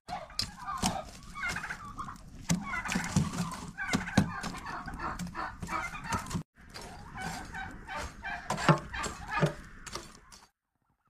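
Domestic fowl clucking, mixed with repeated sharp clatters and knocks as a metal poker stirs burning wood and embers in a steel brazier. The sound breaks off briefly about two thirds of the way through and stops shortly before the end.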